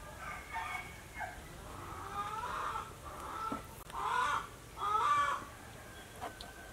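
Chickens clucking: a series of short calls that bend up and down in pitch, the loudest two about four and five seconds in.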